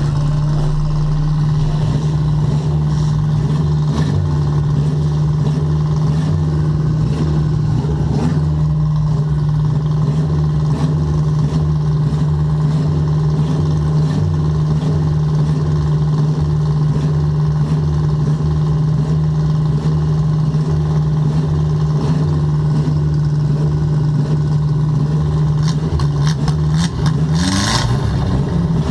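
Stock car's engine heard from inside the stripped cabin, running at a steady pitch, then revving up near the end with a brief clatter.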